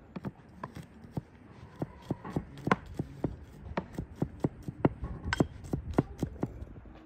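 Kitchen knife chopping garlic cloves on a thick end-grain wooden board: an uneven series of sharp knocks as the blade strikes the wood, about three a second.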